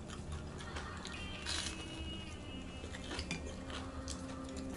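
Faint background music with soft held notes, under quiet eating sounds: chewing and a few light clicks and crunches of utensils and fried food at the table.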